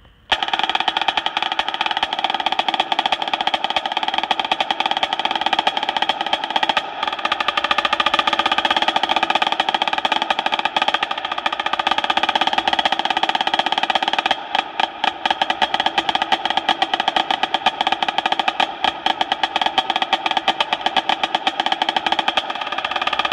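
Dynasty marching snare drum played with wooden sticks in a fast rudimental solo: dense rolls and rapid strokes over a steady ring from the head. It starts abruptly just after the beginning, and about two-thirds of the way through the strokes briefly thin out into quieter, separated hits before the rolls resume.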